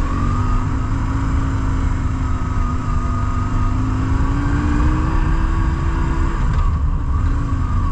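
BMW R1150GS Adventure's air-cooled flat-twin boxer engine pulling under way, its revs climbing slowly before easing off about six seconds in, over a heavy low wind rumble on the microphone.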